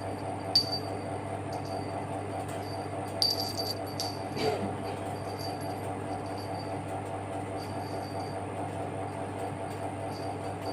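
Steady low electrical hum, with a few light clicks and one brief, faint, falling kitten mew about four and a half seconds in.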